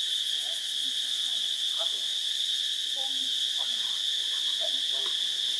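Steady high-pitched insect drone, an unbroken forest chorus. A few faint short calls are scattered underneath.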